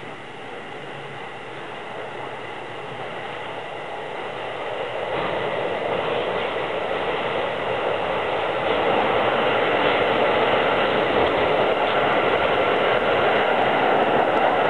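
Keikyu New 1000 series electric train approaching and running into the station along the platform, its rolling noise growing steadily louder.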